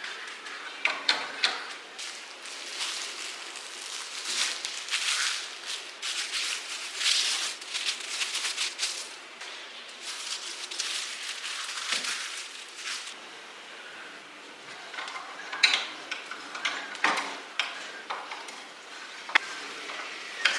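Plastic film crinkling and rustling in irregular swishes as a ball of dough is handled and unwrapped, followed by a few sharp clicks and taps as the dough is pushed into a metal hopper.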